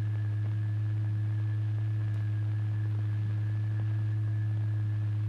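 A steady low test tone from the oscillator driving the vibration experiment, holding one pitch with faint higher overtones.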